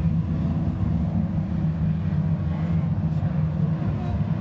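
Several Lightning Rods stock car engines running together around an oval track, a steady low drone.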